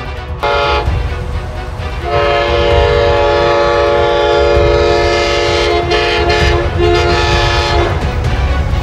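Train horn sounding a chord of several notes: a short blast, then a long blast of several seconds that breaks briefly and resumes, over the steady low rumble of a moving train.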